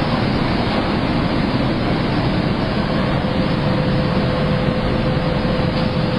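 Sankosha DP-870 garment-pressing machine running, a steady rushing of air and machine noise with a faint steady hum that grows stronger about halfway through.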